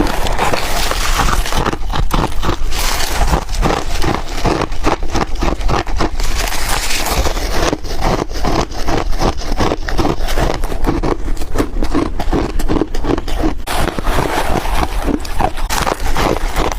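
A person chewing crunchy ice close to the microphone, a quick run of crisp crunches about four a second.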